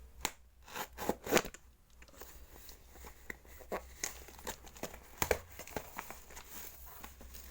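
Parcel packaging crinkling and tearing as it is cut open with a nail clipper, with sharp snaps and rustles at irregular intervals, loudest a second or so in.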